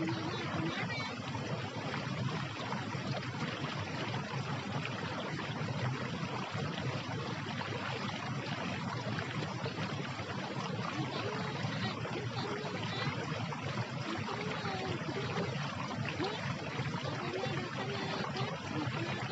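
Steady, even rushing noise, like flowing water, with a few faint high chirps.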